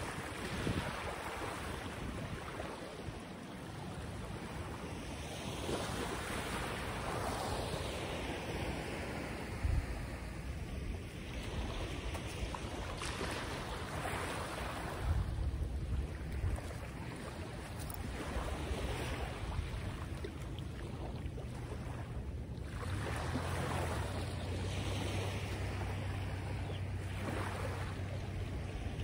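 Waves washing in surges every few seconds, with wind gusting on the microphone.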